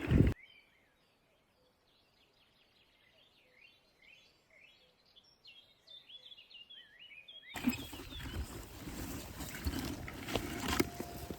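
Faint songbird twittering: many quick, high chirps over a hushed background. It is cut into by a short knock at the start and by louder rustling and handling noise with scattered knocks from about two-thirds of the way in.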